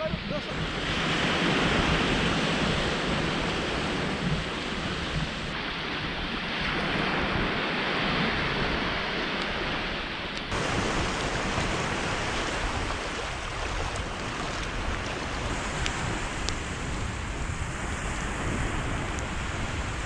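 Sea surf washing on the shore, with wind on the microphone; the wash swells and eases off a couple of times.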